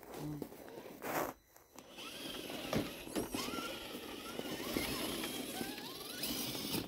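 RC crawler truck's electric motor and drivetrain whining, the pitch rising and falling as the throttle is worked, over a steady rushing noise, starting about two seconds in.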